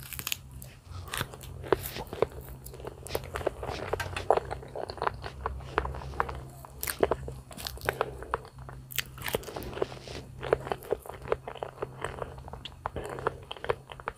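Close-miked mouth sounds of a person biting and chewing soft banana: many irregular short clicks and smacks, over a steady low hum.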